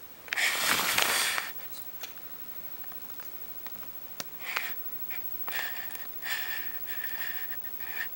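Pet rat sniffing and nosing right at the camera microphone, in short bursts of breathy noise. A louder rustle lasting about a second comes about half a second in.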